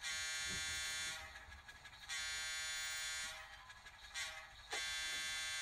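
Sound-decoder horn of an N scale Atlas Alco S2 diesel switcher model, blown in three steady blasts of about a second each through the model's small speaker. The third blast is still sounding at the end.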